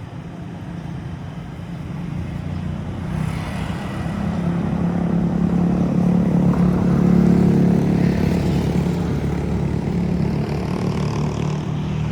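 A motor engine running close by, growing louder from about three seconds in, peaking around the middle and then easing off, like a vehicle passing.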